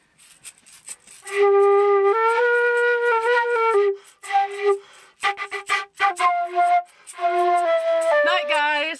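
Background music: a melody of held notes over a light clicking accompaniment, coming in about a second in and pausing briefly twice.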